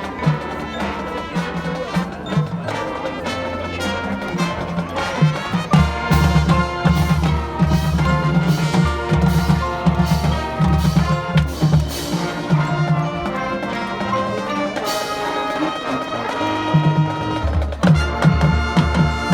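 High school marching band playing live, with brass carrying the tune over a driving drum-line beat. The low drums drop out for a few seconds past the middle and come back in near the end.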